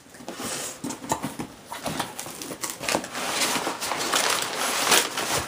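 Cardboard shipping box being opened by hand at its taped seam, then crumpled brown packing paper rustling and crinkling as it is pulled out, louder in the second half.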